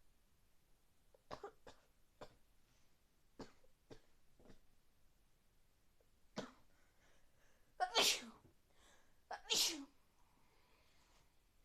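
Two loud sneezes, about a second and a half apart, near the end. Several short, quieter sounds come before them.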